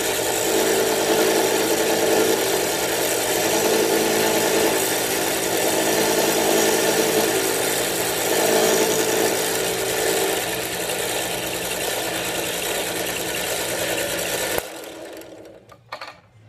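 Manual milling machine running as it mills the lock relief on a frame-lock knife, a steady machine noise with a hiss that wavers a little. It cuts off abruptly near the end, followed by a couple of faint clicks.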